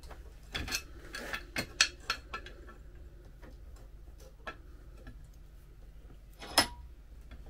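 Sharp metallic clicks and knocks as a steel wiper linkage is handled and clamped in a bench vise. There is a quick run of clicks in the first two seconds, a few scattered ones after, and one louder clank near the end.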